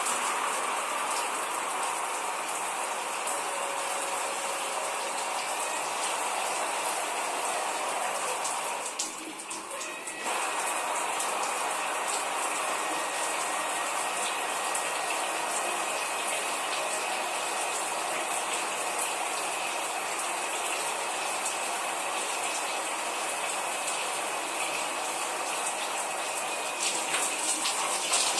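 A shower running, its spray hissing steadily onto a person and the shower floor. About nine seconds in, the spray dips and sounds muffled for about a second before going on as before.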